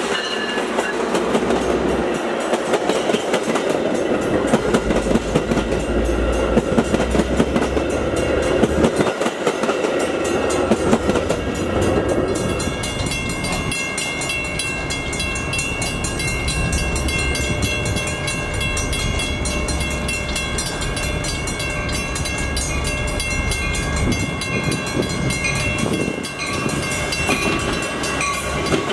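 A Metra diesel locomotive and its bilevel commuter coaches run past close by, with a heavy rumble and wheels clicking over the rail joints. About twelve seconds in, the sound changes to a second Metra bilevel train rolling past cab car first, a steadier rumble with several steady high-pitched tones over it.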